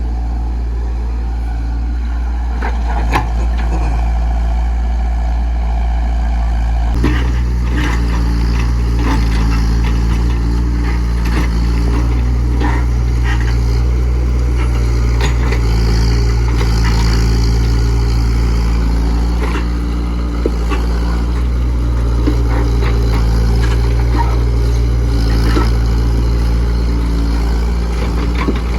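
Diesel engine of a Komatsu PC68 mini excavator running steadily under work, with scattered short metallic clanks and knocks; the engine note shifts about seven seconds in.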